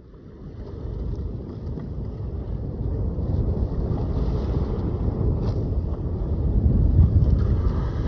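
Wind buffeting the microphone on a sailboat under way: a low, gusty rumble that swells in the first second and stays loud, peaking near the end, over a fainter hiss of water rushing past the bow.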